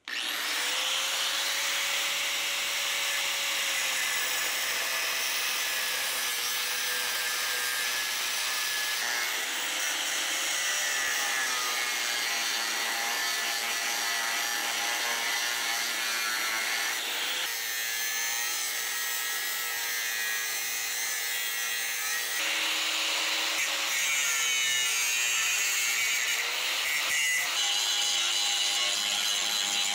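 Angle grinder grinding down the heads of the factory rivets that hold a leaf-spring mount to a steel truck frame. The grinding runs without a break, its motor pitch dipping and recovering several times.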